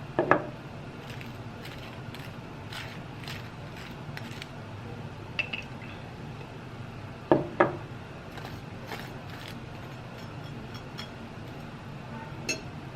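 A few sharp clinks and taps of a knife against a jar and plate while jam is spread on toast, the loudest a quick double clink about halfway through, over a low steady hum.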